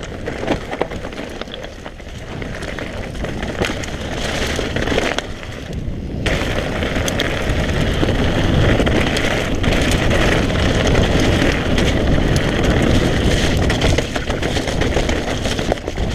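Mountain bike ridden over rough trail: a steady rush of wind and tyre noise with many clicks and rattles from the bike, louder from about six seconds in.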